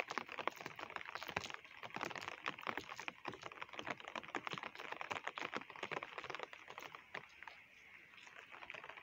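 Steady rain, with nearby raindrops tapping in dense, irregular clicks over a light hiss; the tapping thins a little near the end.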